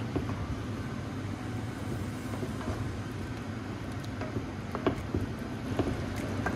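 Wooden spoon stirring a thick soup in a metal pot, with a few sharp knocks of the spoon against the pot over a steady low hum.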